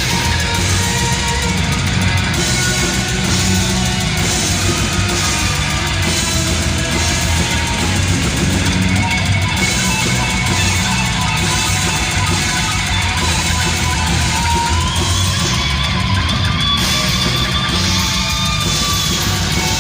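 Heavy metal band playing live: distorted electric guitar over bass and drum kit, loud and continuous. About three-quarters of the way through, a held note slides up in pitch and is sustained.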